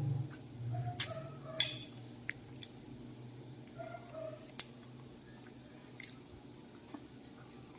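Close-up eating sounds of a person chewing soft, pulpy sugar apple (atis): quiet wet chewing with a few sharp clicks, the loudest a short crackle about one and a half seconds in.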